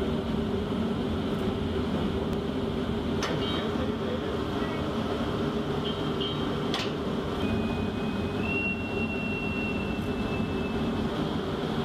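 Steady rumble and hum of shipboard machinery on a ship's deck at sea, with two sharp clicks about three and seven seconds in. A thin whistling tone starts near the end, steps up slightly and holds for a few seconds.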